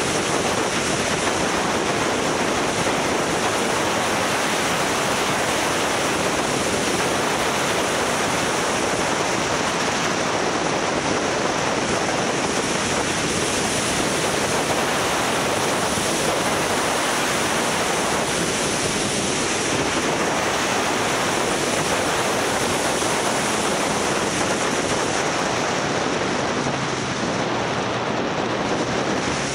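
Steady rush of wind over the microphone of a camera on a moving motorcycle, with road and engine noise buried under it.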